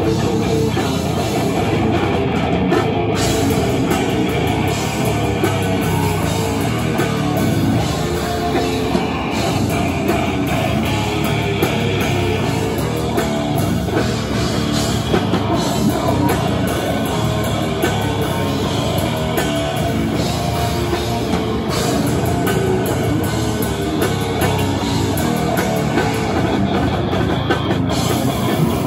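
Brutal death metal band playing live: distorted guitar, multi-string electric bass and fast, dense drumming, loud and unbroken.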